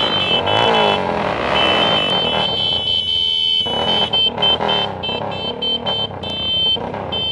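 Dirt bike engine revving up and down close by, with a steady high-pitched whine that cuts in and out over it.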